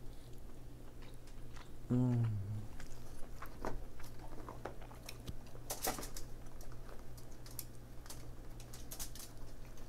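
Chewing king crab meat with a short "mm" about two seconds in, then scattered clicks and cracks of king crab leg shell being handled and pulled apart by hand.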